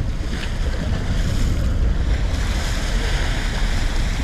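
Wind buffeting the microphone over steady rushing water on a fishing boat out at sea, a constant low rumble with no break.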